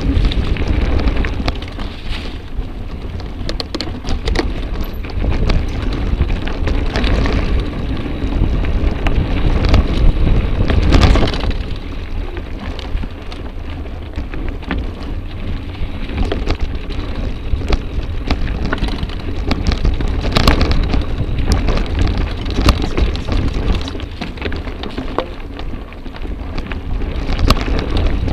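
Mountain bike riding over dirt singletrack, heard from the moving bike: a steady rolling rattle with many small knocks and clatters from the tyres and bike over the rough trail, and a low rumble of wind on the microphone.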